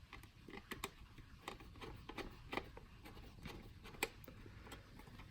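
Faint, irregular small clicks and scrapes of a precision screwdriver fastening a screw in the plastic drive-bay cover of a DVR, with a slightly louder click about four seconds in.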